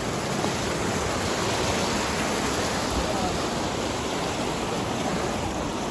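Waterfall rushing: a steady wash of falling water.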